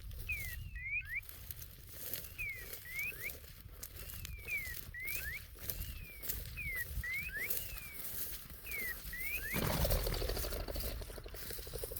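A bird calling over and over: short clusters of two or three quick whistled notes, each sliding down or up in pitch, repeated about every two seconds over a low outdoor rumble. About ten seconds in, a louder rustling noise rises over it.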